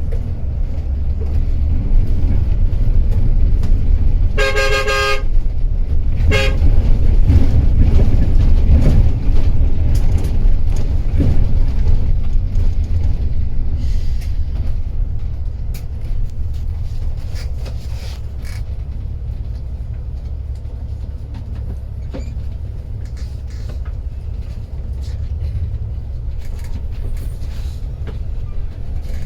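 Intercity coach driving on the highway with a steady low rumble and occasional knocks and rattles. A vehicle horn sounds for about a second roughly four seconds in, then toots briefly once more about two seconds later.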